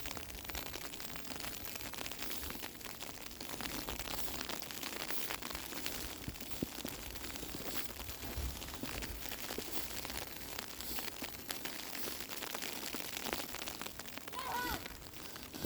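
Falling snow pattering on surfaces: a steady, fine crackle made of many small ticks.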